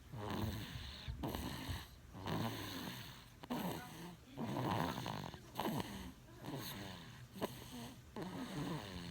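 Snoring from a small sleeper, a short snore on almost every breath, about one a second.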